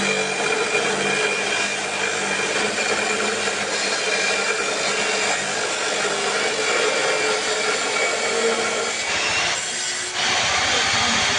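Electric cutting machine running and cutting, a steady whine over a rasping noise. It thins out briefly about nine seconds in, then picks up again.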